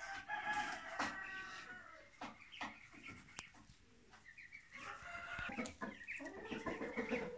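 Broody hens sitting on eggs clucking at an approaching hand, the calls of hens defending their nest. The calls come in two runs, one at the start and a longer one through the second half, with a few short sharp clicks between them.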